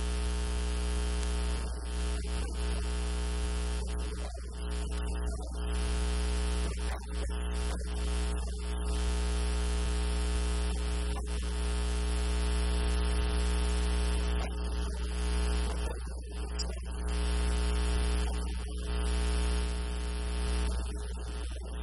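Loud, steady electrical mains hum with a buzzy stack of overtones, with a few brief dips.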